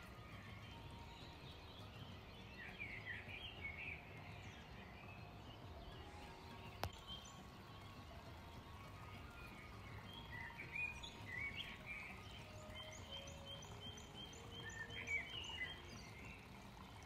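Small birds chirping and singing in short spells over a faint steady background hum, with a run of quick repeated notes near the end and one sharp click about seven seconds in.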